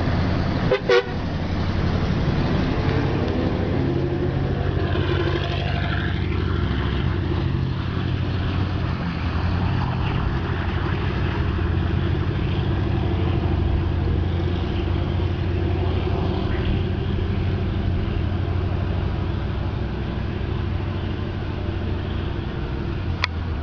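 LiAZ-677M city bus's V8 petrol engine running with a steady low drone as the bus drives off, easing slightly toward the end.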